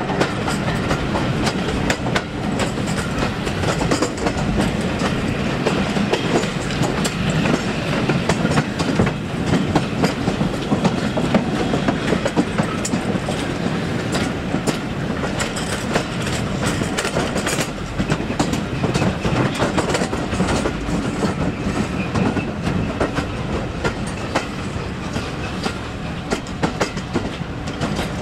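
A train's coaches running steadily along the rails: a continuous rumble with a rapid clatter of wheels clicking over the rail joints.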